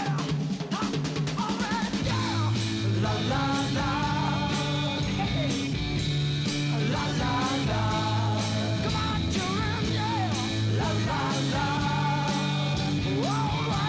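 Rock-and-roll band music with a steady beat of about two a second, a bass line and a wavering sung lead melody.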